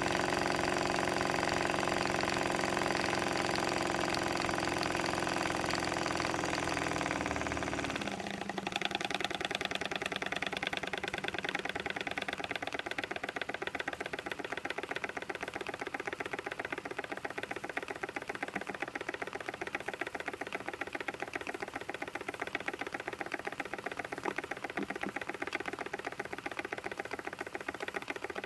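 PM Research No. 3 model steam engine running on steam from a boiler, making a fast, even ticking with each stroke. For about the first eight seconds a steady hum sounds over it; the hum drops in pitch and stops.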